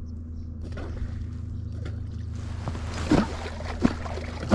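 A catfish clonk struck into the water three times, about two-thirds of a second apart, starting about three seconds in. Each stroke gives a short, deep, hollow plop, the sound used to call catfish up to the bait. A steady low hum runs underneath.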